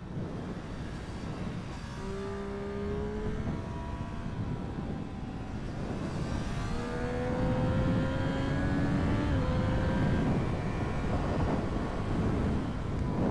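Triumph Street Triple 765 RS's inline three-cylinder engine pulling under throttle: a steady engine note, then from about seven seconds in a slowly rising pitch with a brief dip near nine seconds. Heavy wind rush on the microphone throughout, growing louder as speed builds.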